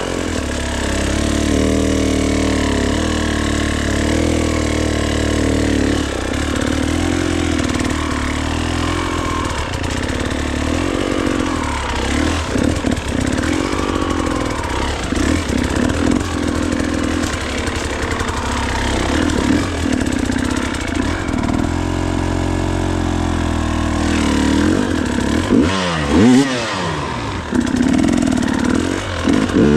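Gas Gas dirt bike engine revving up and down in short irregular bursts as it is picked through a loose rock field, steadier for a few seconds past the middle, with a quick sharp rev near the end.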